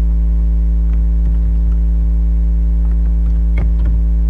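Steady electrical mains hum with a stack of even overtones, the loudest thing throughout. Over it come a few faint computer-keyboard key clicks, about a second in and again after three seconds.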